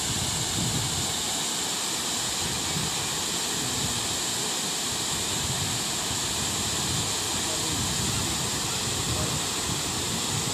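Waterfall: a steady rush of water falling over rock ledges.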